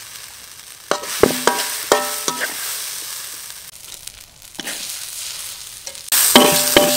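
Metal spatula knocking and scraping against an aluminium pot and wok while scooping out fried rice, the metal ringing after each knock, over a steady sizzle of rice frying in the wok. A few knocks come about a second in, and a louder burst of scraping and clanking begins near the end.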